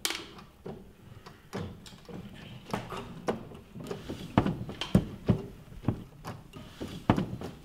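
A shoe knocking and thumping on wooden floorboards: a dozen or so short knocks at uneven intervals, the louder ones in the middle and latter part.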